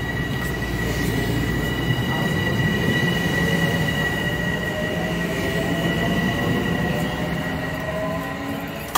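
Metro-North M7A electric multiple-unit train pulling out of a station, its cars rumbling past with a high, steady whine from the electric propulsion. A lower whine slowly rises in pitch as it gathers speed, and the sound fades near the end as the rear car moves away.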